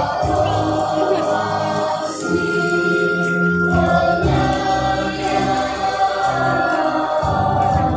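Many voices singing together like a choir, with music, held notes changing every second or so.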